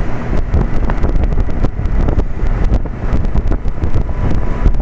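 1998 Trane XL1800 5-ton heat pump's outdoor unit running steadily in cooling mode: condenser fan and Climatuff reciprocating compressor. The fan's discharge air buffets the microphone with a rumble.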